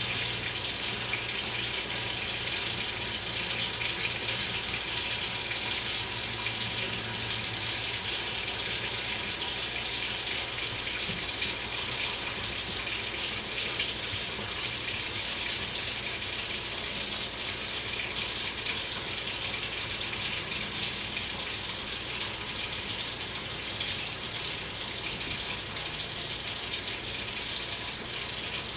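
Kitchen sink faucet running steadily, water pouring into the sink and down the drain, which is being tested for a tiny leak in the repaired drain pipe.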